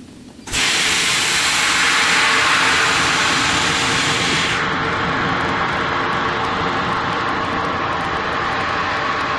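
Loud rush of air from a plastic vacuum forming machine, starting suddenly about half a second in and running steadily, with a machine hum beneath it. Its hiss loses its highest part a little before the middle.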